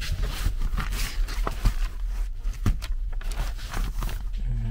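Paper being handled: rustling and small clicks of a loose sheet and the pages of a record book, irregular and close, over a steady low hum.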